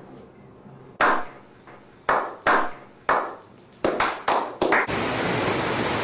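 A slow clap by a small group of men: single hand claps about a second apart, quickening into faster clapping. About five seconds in it gives way to the steady rush of fast-flowing spring water.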